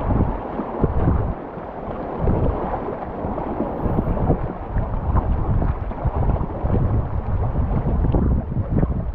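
Wind buffeting a GoPro action camera's microphone in uneven gusts, over a steady rushing noise.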